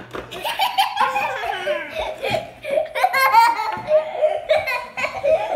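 Young children laughing hard in repeated fits of giggles.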